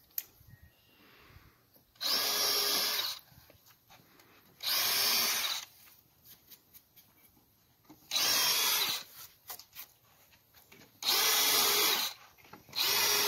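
DEWALT 20V MAX brushless compact hammer drill (DCD778) drilling pilot holes into a wooden retaining-wall timber in short bursts: four runs of about a second each, with a fifth starting near the end, the motor speeding up and stopping each time.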